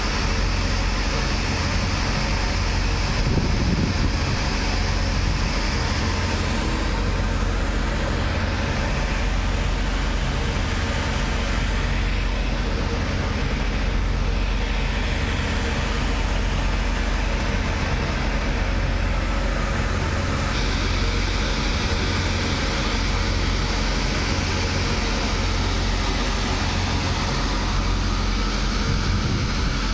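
Heavy machinery running steadily: a continuous roar with a low hum underneath.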